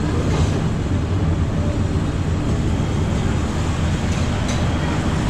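Steady low rumble of a busy buffet dining room, with a few faint clinks.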